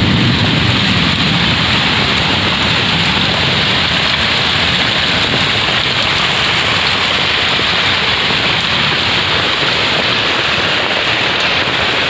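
Heavy downpour: rain drumming on a tarpaulin overhead, with runoff streaming off its edge, a loud steady hiss. A low thunder rumble dies away in the first second.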